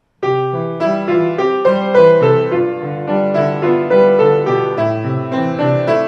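Kawai piano playing a simple, lively children's-song accompaniment, with a melody over a steady bass. It starts about a quarter second in, after silence.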